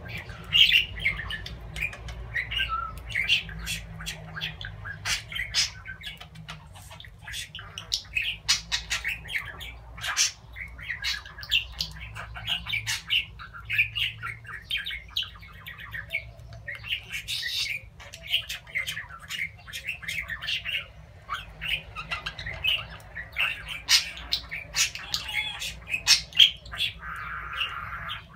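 Budgerigar chattering and warbling: a rapid, unbroken run of short chirps, squawks and clicks.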